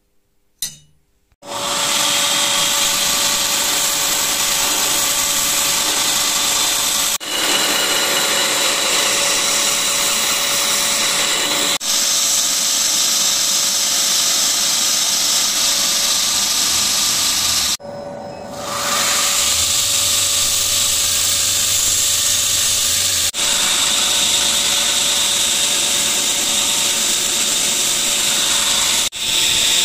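Belt grinder running with a crucible-steel knife blade pressed against the abrasive belt, a steady loud grinding hiss over a constant motor tone as the bevels are ground. It starts about a second and a half in and breaks off abruptly a few times.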